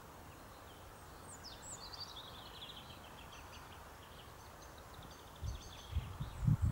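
A small songbird singing a run of quick, high trilled notes that step slightly down in pitch over about four seconds. Low wind rumble on the microphone comes in near the end.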